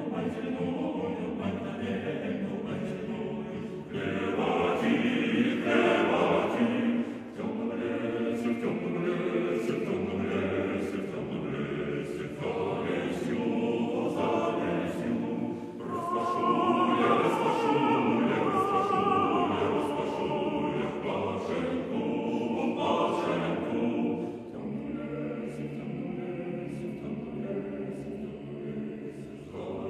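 Background choral music: a choir singing slow, sustained chords.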